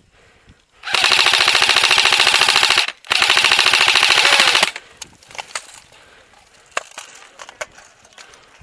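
An airsoft electric rifle firing two long full-auto bursts close by, each a rapid, even rattle of shots, the first about two seconds long and the second about a second and a half. After them come scattered faint single shots.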